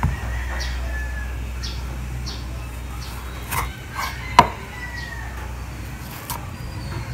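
Kitchen knife cutting through a small tomato and knocking sharply on a wooden cutting board, once a little past the middle and more lightly just before, over a steady low hum with a few faint bird calls in the background.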